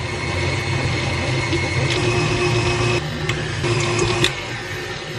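KitchenAid tilt-head stand mixer running at high speed, beating crushed Oreo cookies and cream cheese into a dough. It makes a steady motor hum, with a few light ticks in the middle.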